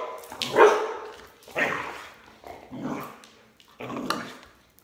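Border collie barking at a swinging jump rope, four loud barks about a second apart.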